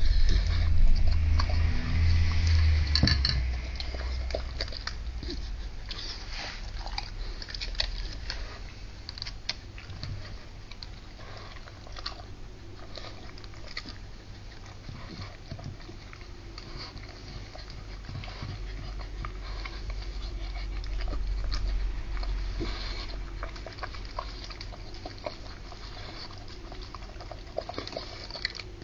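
A Staffordshire bull terrier eating from a stainless steel bowl: irregular wet chewing, smacking and small clicks as she works through a mix of steak bridie and dog food. The first three seconds are louder, with a low rumble under the eating.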